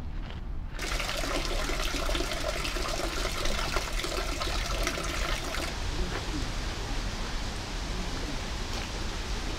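Spring water trickling and splashing into a small stone pool: a steady watery hiss that starts suddenly about a second in.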